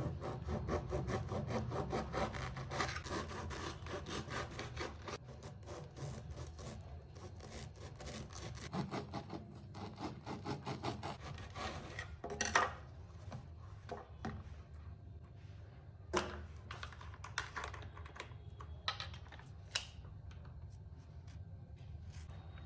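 Rapid rubbing or scraping strokes, several a second, for the first half, then scattered sharp clicks and taps.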